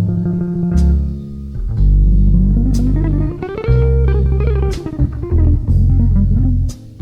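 Instrumental rock or jazz music: an electric guitar plays a bending melodic line over a bass guitar and drums.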